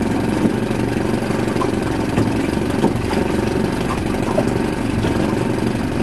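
Small fishing boat's motor running steadily at low, trolling speed.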